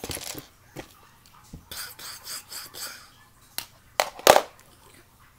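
Plush toys being handled and moved about by hand, with rubbing and rustling. A few sharp knocks come about four seconds in, the loudest near the middle of them.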